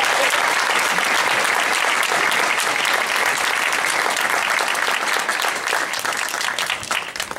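Audience applauding, steady at first and thinning to scattered separate claps near the end.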